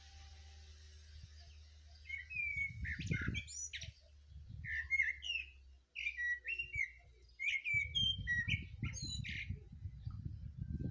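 A thrush singing: several short phrases of gliding whistled notes with high twittering parts, starting about two seconds in. A low rumble on the microphone comes and goes under the song.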